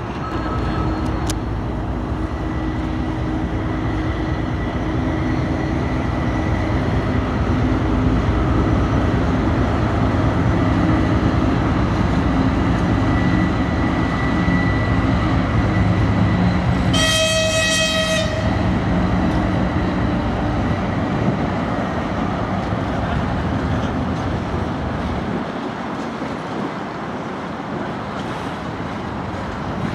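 Freight train passing over a level crossing: a locomotive followed by the wagons rumbling by, loudest midway. A single high horn blast lasting about a second and a half sounds a little past halfway.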